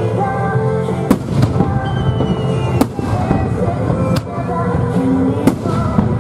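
Aerial firework shells bursting in sharp bangs, about five of them, over music playing throughout.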